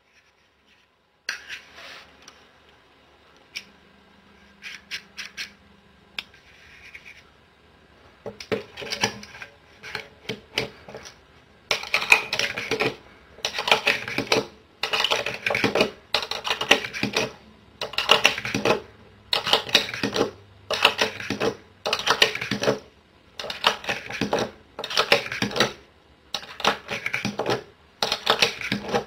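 UpLULA universal pistol magazine loader loading 9mm cartridges into a Glock magazine. First some scattered clicks and scrapes as the loader is fitted and handled. From about midway comes a steady rhythm of loading strokes, about one a second, each a short clatter of plastic and metal as a round is pressed into the magazine.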